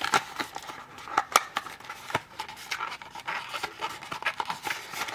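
Hands handling stiff printed cardboard and paper inserts: rustling with scattered light clicks and taps of card against card.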